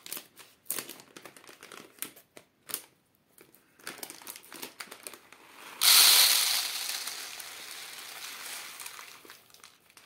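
Plastic packet of rye grain crinkling as it is handled and opened. About six seconds in the rye pours out of the packet into a plastic tray on a kitchen scale: a sudden loud rush of grain hitting plastic that thins out over the next few seconds.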